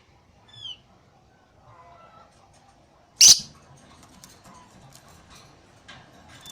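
Lovebird calling: a short falling chirp, then a single loud, shrill screech about three seconds in, with a few faint clicks around it.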